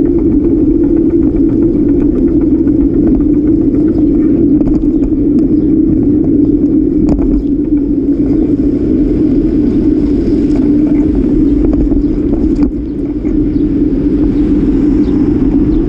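Steady wind and road rumble on a bicycle-mounted action camera riding along a paved city bike lane, with small rattling clicks from bumps and car traffic running alongside.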